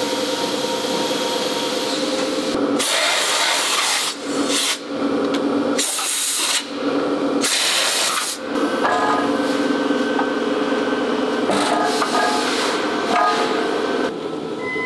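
Silicone compression-molding press humming steadily. Four short bursts of air hiss come between about three and eight and a half seconds in, as the open mold is blown off.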